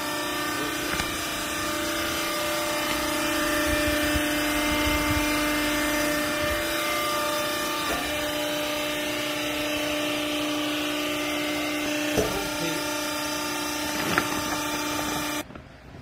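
Clothing baler's hydraulic power unit running: a steady motor-and-pump hum with a strong low tone and several higher ones, with a few light knocks over it. The hum cuts off suddenly shortly before the end.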